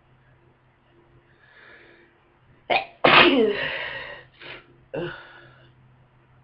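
A person with a heavy head cold gives a powerful sneeze about three seconds in. A faint intake of breath and a short catch come first, then a loud explosive blast whose voice falls in pitch as it fades. Two shorter bursts of breath follow.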